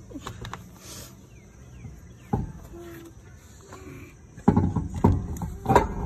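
A few sharp knocks and clatters as the wheel is handled on the hub: a single knock about two seconds in and a louder cluster of knocks in the last second and a half.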